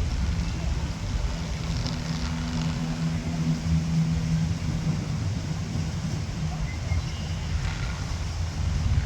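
Low outdoor rumble with a steady engine hum for the first four or five seconds, which then fades, and faint voices in the background.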